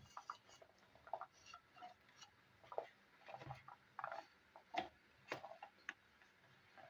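Faint, irregular light clicks and taps of kitchen handling, with two sharper knocks about five seconds in.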